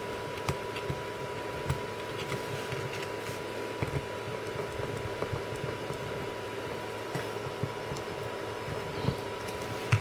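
Scattered small clicks and taps of wires and a screwdriver being worked on the screw terminals of a heavy-duty toggle switch, over a steady hiss with a faint constant high tone.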